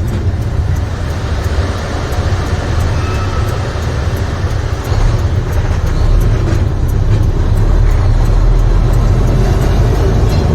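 Diesel engine of an International semi truck with a MaxxForce 13, running at low speed with road noise: a steady low rumble that grows heavier about six seconds in.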